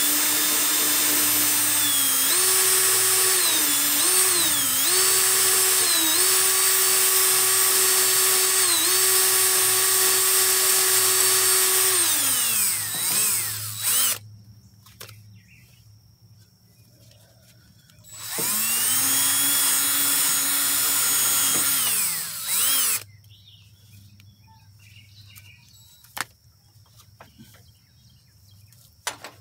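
DeWalt DCD771 cordless drill spinning a wire wheel brush on battery cable terminals, cleaning them. It runs for about twelve seconds, its pitch dipping briefly several times as the brush bears down, then winds down; after a pause it runs again for about four seconds, and the rest is light handling with a couple of sharp clicks near the end.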